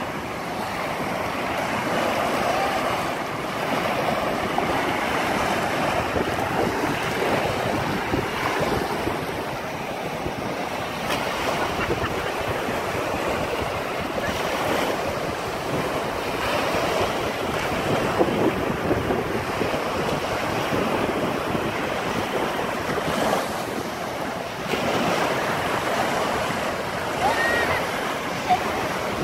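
Small ocean waves breaking and washing up over a sandy shore in a steady, continuous wash, with wind buffeting the microphone.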